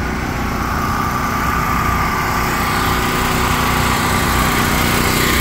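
Small gasoline portable generator running steadily up close, very loud, growing a little louder near the end.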